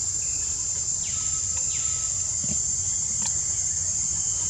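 Forest insects droning in a continuous high-pitched buzz, with a few faint chirps over it and a low rumble underneath.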